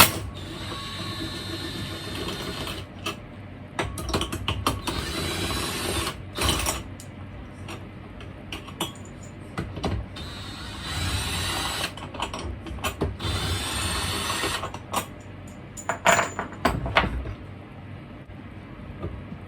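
Ratchet wrench clicking in several bursts as the cylinder head bolts of a Honda GX110 engine are loosened, with scattered clinks of tools and metal parts in between.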